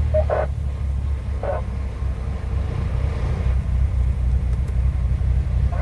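Scania R730's 16.4-litre V8 diesel engine running steadily with a low, even rumble.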